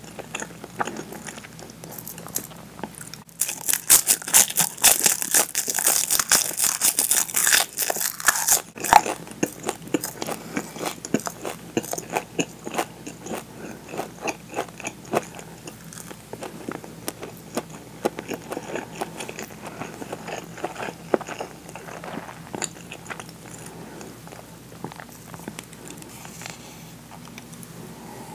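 Close-up eating: from about 3 to 9 seconds in, a loud run of crisp crackling bites from a sheet of seasoned nori eaten with rice. Then softer, steady chewing of rice with small wet mouth clicks.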